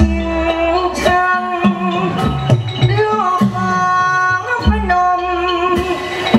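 Male likay singer's amplified voice singing long, bending held notes in Thai folk-opera style, over instrumental accompaniment with scattered drum strokes.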